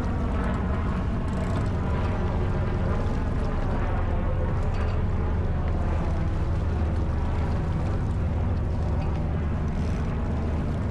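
Steady wind rumble on the microphone and water rushing past the hull of a J/24 sailboat under way.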